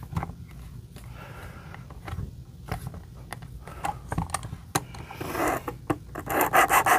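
Plastic clicks and knocks as the Work Sharp Precision Adjust's knife clamp is flipped and seated and its guided sharpening rod is handled. Near the end comes a rub, then rapid even strokes of the coarse 220-grit stone along the knife edge, about five a second.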